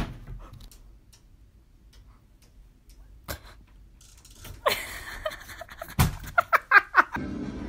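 A sharp knock right at the start, then a few faint clicks. About six seconds in comes a heavy thump as a cat clinging to a window screen drops off, followed at once by a quick run of five or six short cries.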